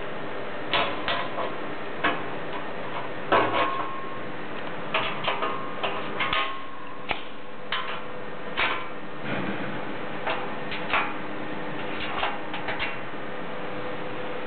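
Irregular metallic clicks and knocks from the lock and latch of a Nautilus Hyosung ATM's safe door being worked open, some coming in quick pairs, over a steady hum.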